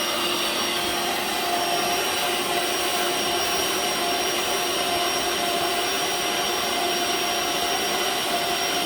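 Hoover OnePower cordless cleaner running steadily, a continuous suction rush with a steady motor whine.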